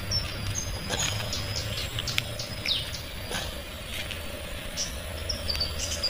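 Insects chirring steadily in a high thin tone, with a few short bird chirps and scattered soft knocks from footsteps on the ground.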